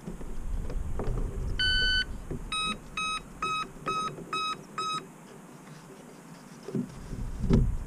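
Electronic speed controller of an electric RC plane sounding its arming tones as the flight battery is connected: one long tone, then six short beeps about two a second. A low thump of handling comes near the end.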